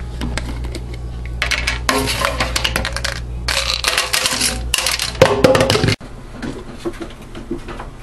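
Clinking and clattering of kitchenware in a stainless-steel sink, in two dense stretches over a steady low hum, with a few sharper strokes before it all cuts off abruptly about six seconds in.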